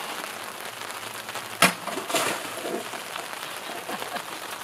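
Rain falling steadily, with one sharp crack about one and a half seconds in as a sword blade cuts through a plastic water jug, and a softer burst of noise half a second later.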